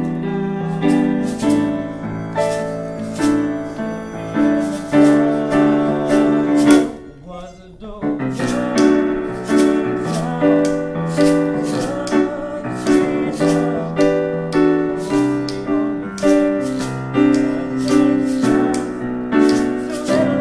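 Small live ensemble playing a pop tune: digital piano chords and melody, with hand shakers keeping a steady beat about twice a second. The music nearly stops for about a second around seven seconds in, then picks up again.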